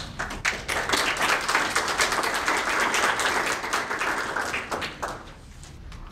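Audience applauding with many fast hand claps, dying away about five seconds in.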